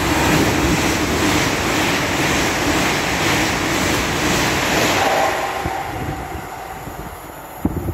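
LNER Azuma high-speed train passing through at speed: a loud rush of wheel and air noise that builds quickly and fades after about five seconds. A few sharp knocks near the end.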